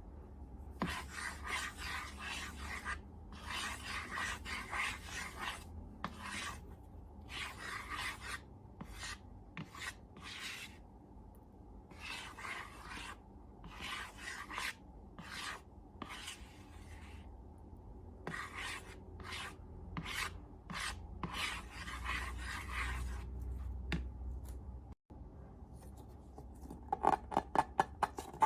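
Slime being mixed and worked: a series of rubbing, scraping strokes, each lasting about a second, with short pauses between them, turning into a quick run of crackling clicks near the end.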